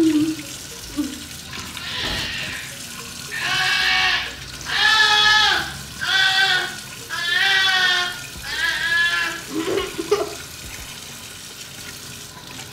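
A goat bleating five times in quick succession, each call wavering and high. Underneath, a tap runs into a stainless steel sink as raw chicken is rinsed under it.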